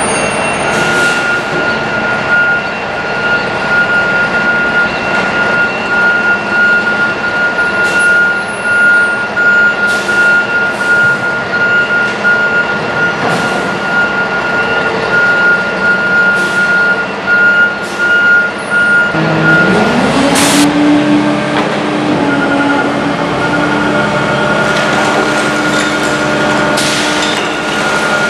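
Diesel garbage truck running with a high steady tone over the engine and scattered clanks. About two-thirds through, the engine revs up and holds at a higher speed, with a short sharp hiss of air.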